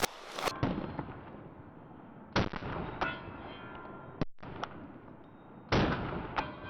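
Gunfire at an outdoor shooting range: about seven shots at irregular intervals, each with an echoing tail, the loudest about two and a half and nearly six seconds in, with fainter shots between.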